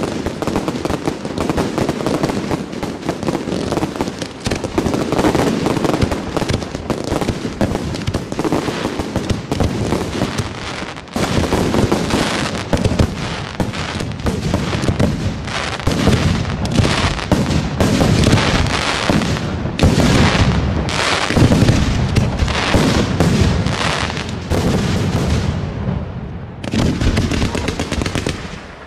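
Fireworks display: a dense, continuous barrage of aerial shell bursts and reports, each overlapping the echoes of the last. It thins out about 25 seconds in, and one last short flurry follows before it dies away.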